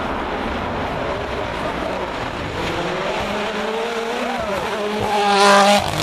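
Rally car engine revving hard as the car climbs towards and past, its pitch rising over the last few seconds and loudest just before the end, then dropping away sharply.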